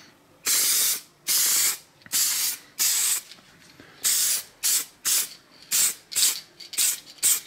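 Aerosol spray-paint can hissing in about a dozen short bursts with brief pauses between them, the first few about half a second long and the later ones shorter and quicker, as light coats of paint are laid on a small metal part.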